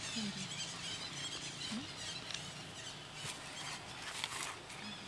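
A baby macaque giving two short, soft squeaks in the first two seconds, then a couple of small clicks, over a steady background hiss with faint high chirps.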